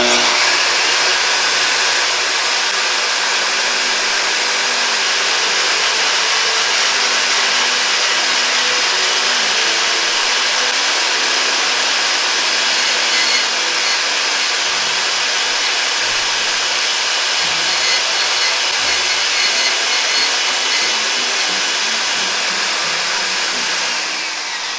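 Portable band saw running steadily, a continuous motor and blade whir that starts abruptly and eases a little near the end.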